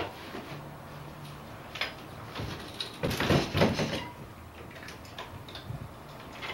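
Bike Friday folding bicycle being folded: sharp clicks, then a louder clatter and rattle of frame, chain and wheel about three seconds in as the rear wheel swings under the frame, followed by a few light clicks.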